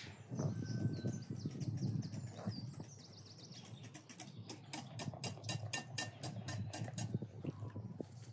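Wire whisk beating a liquid batter in a glass bowl, the wires clinking against the glass in a quick, rhythmic run of taps. Birds chirp in the background.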